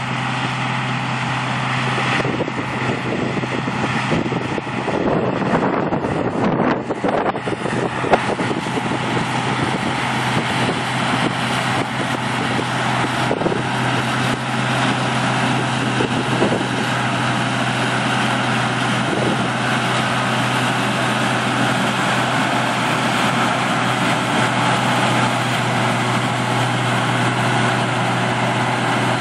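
Heavy farm machinery running steadily: a constant low engine hum under broad mechanical noise.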